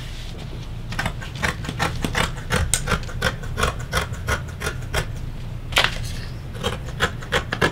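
Fabric scissors cutting through fabric: a quick run of blade snips, about four a second, then a few slower, scattered snips near the end.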